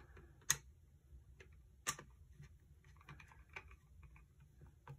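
Faint clicks and light scraping of a hand screwdriver turning a screw into a Ring Stick Up Cam's plastic base plate, with two sharper clicks in the first two seconds.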